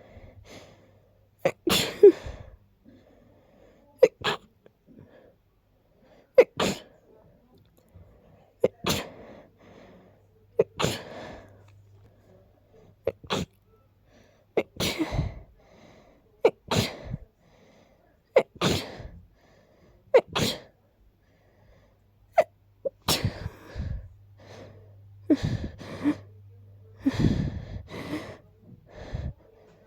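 A person with a head cold sneezing again and again: sharp, stuffy sneezes, a dozen or more in a row at about one every two seconds, some coming in quick pairs. The sneezes are congested, the sign of a blocked nose from being sick.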